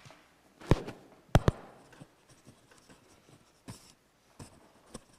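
Papers being handled on a pulpit lectern close to its microphone: three sharp taps and rustles about a second in, then a few fainter ones.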